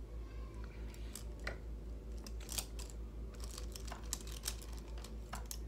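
Light, irregular clicks and taps of makeup tools being handled, a brush against an eyeshadow palette, over a steady low hum.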